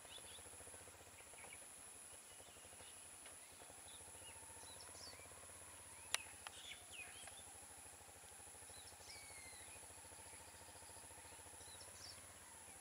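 Near silence: faint outdoor ambience with scattered bird calls over a steady high-pitched drone, and one sharp click about six seconds in.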